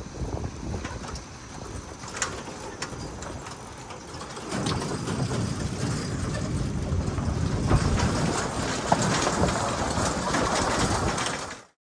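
Vehicle on the move: steady road rumble with scattered rattles and clicks, getting louder about four and a half seconds in. It cuts off suddenly just before the end.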